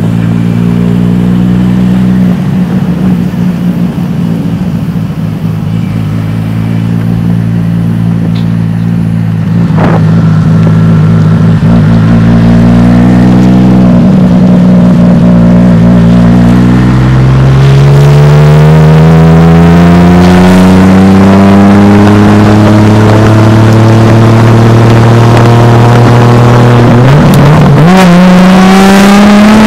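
Car engine accelerating hard through the gears. It runs steadily at first, then its pitch climbs in long rising sweeps, dropping back at two gear changes, about ten seconds apart, and climbing again each time.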